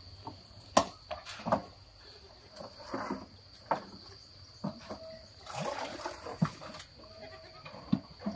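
Goats bleating now and then, mixed with scattered knocks and clatter of plastic buckets and a feed sack being lifted from a wheelbarrow, including a rustle a little past the middle. A steady high whine sits underneath.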